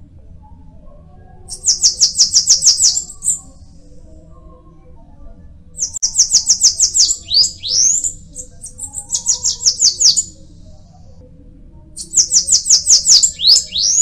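Bananaquit singing: high, thin song phrases made of a rapid run of notes followed by a few upward-sweeping notes, repeated every few seconds.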